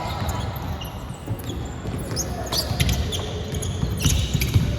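A basketball bouncing on a court floor during play, a series of short sharp thuds, with faint voices of players and spectators in the background.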